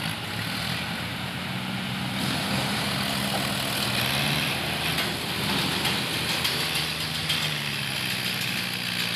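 Diesel farm tractor engines running hard as they pull trolleys heavily loaded with logs, a steady low hum that grows slightly louder as a tractor passes close about four seconds in.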